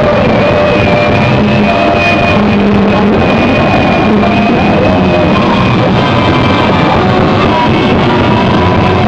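Loud, distorted electric guitar noise in a dense, unbroken wall of sound, with a steady high whine above it and shorter pitched tones shifting underneath.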